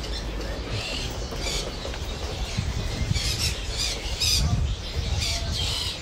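Caged songbirds chirping and calling in quick, repeated high-pitched bursts, over a steady low background rumble.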